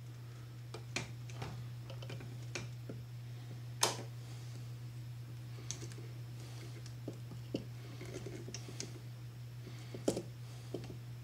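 Scattered small metal clicks and taps of pliers and a retaining clip being worked onto the wiper linkage arm at the wiper motor, the sharpest about four seconds in and again near the end, over a steady low hum.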